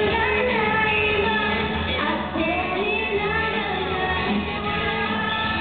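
A woman's singing voice over a pop backing track with a steady bass line, heard as loud amplified stage sound.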